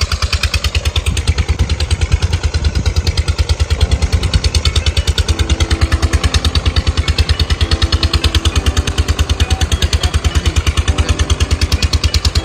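Engine driving a tubewell pump running steadily with a fast, even chugging beat, with water gushing from the pump's outlet pipe.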